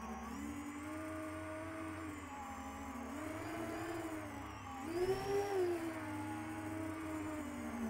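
Quadcopter's brushless motors and 10-inch three-blade propellers whining, the pitch rising and falling with the throttle, with a louder, higher surge about five seconds in.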